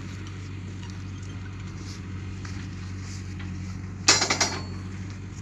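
Steel rebar of a reinforcement cage clinking and rattling briefly about four seconds in, over a steady low hum.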